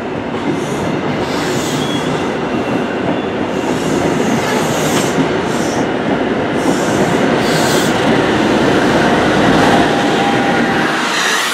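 InterCity 125 High Speed Train's Mark 3 coaches passing at speed: a steady rumble of steel wheels on rail that grows louder as the rear Class 43 power car draws near. The deep part of the rumble falls away suddenly about a second before the end.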